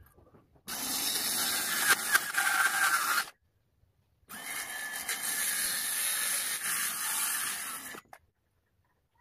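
Bosch cordless circular saw cutting through a marine plywood sheet in two runs: about a second in it cuts for around two and a half seconds, stops, then cuts again for nearly four seconds, each run starting and stopping abruptly.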